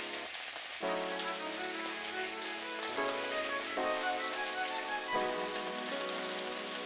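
Cod fillets sizzling in hot oil in a stainless steel frying pan, a steady crackling hiss as they cook flesh side down. Soft background music chords play underneath, changing every second or two.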